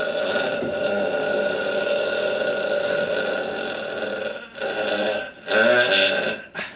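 A man belching: one very long burp held at a steady pitch, ending about four and a half seconds in, then two shorter burps, the last the loudest.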